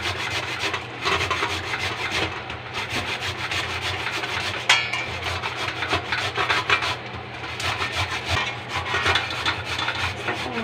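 Peeled cassava root grated by hand on a perforated metal grater over a stainless steel bowl: a steady, continuous run of quick scraping strokes.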